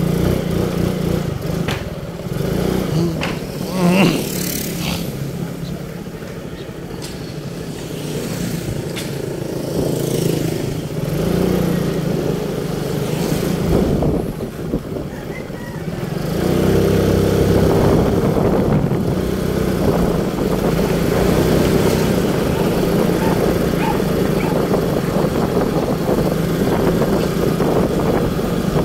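A small engine running steadily, then picking up and running louder about halfway through.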